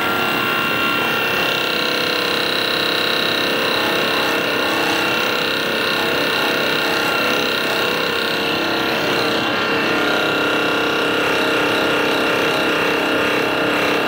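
Percussion massage gun running steadily while pressed against the upper back and neck, a constant motor hum held at one pitch with only a slight change partway through.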